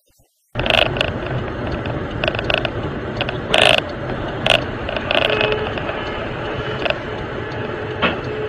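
Road and engine noise inside a moving vehicle, starting abruptly about half a second in, with irregular clicks and rattles from the cabin.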